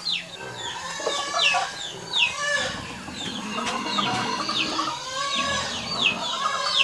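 Domestic chickens clucking, among many short high chirps that fall in pitch, several a second.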